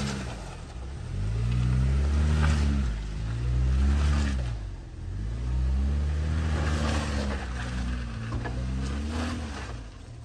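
Tank 300 SUV's engine revving up and down under load as it climbs a steep dirt hill, in about four swells of rising and falling pitch.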